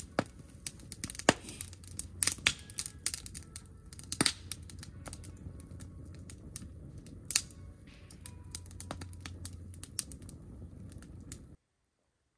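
Campfire of logs burning in a steel fire ring, crackling with frequent irregular sharp pops over a low steady rumble. It cuts off suddenly near the end.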